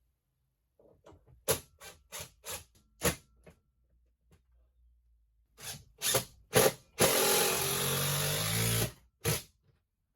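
A power drill driving a screw in one run of about two seconds, likely fixing a shelf to a newly drywalled wall. Before it come scattered knocks and clicks of handling, and one more knock follows.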